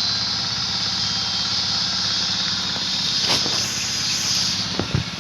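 A small motor running steadily with a low, even hum, under a steady high-pitched hiss. There are a couple of short knocks near the end.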